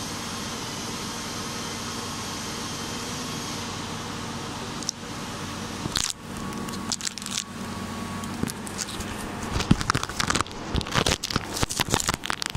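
A steady hiss with a low hum, then from about six seconds in, irregular crackling, crunching and clicking handling noise as the recording camera is moved and covered, the clicks coming thicker near the end.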